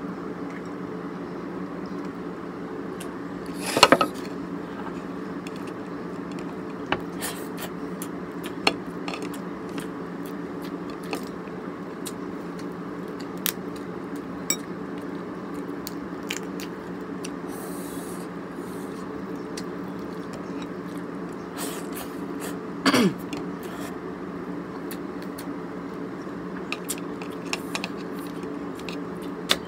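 A cooked crab being pulled apart by hand: scattered small clicks and cracks of shell, with two louder scrapes of dishware, over a steady low hum.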